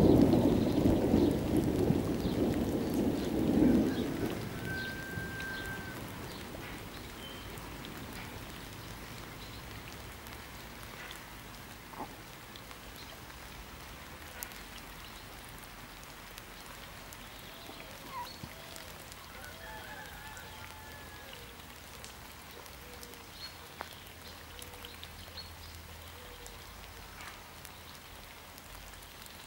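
Thunder rumbling and fading away over the first few seconds, followed by a steady faint hiss of light rain. A few short bird calls come through the rain.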